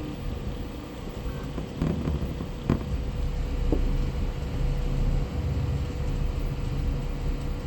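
Voron 2.4 3D printer running a print, its Moons stepper motors humming low and shifting pitch as the moves change, over a steady tone. A single sharp click about two and a half seconds in.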